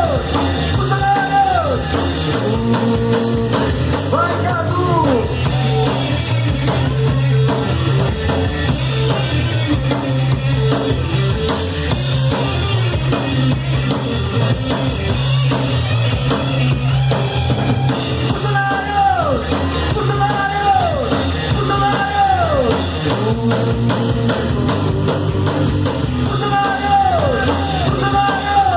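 Rock band playing live: drum kit and guitar over a steady bass, with repeated high falling pitch glides near the start and again from about two-thirds of the way through.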